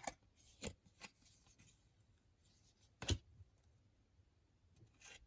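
Trading cards being handled and flipped over by hand: a handful of short, soft taps and flicks, the loudest about three seconds in.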